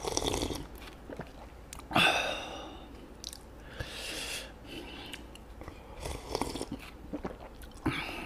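Close-miked mouth sounds of drinking instant kimchi-ramyun broth straight from the cup: several slurps and swallows, the loudest about two seconds in, then quieter wet mouth sounds.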